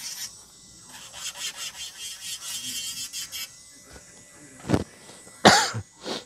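Electric nail drill bit grinding down acrylic nail in a quick run of short rasping strokes, about five a second. Then two coughs near the end, the second the loudest sound.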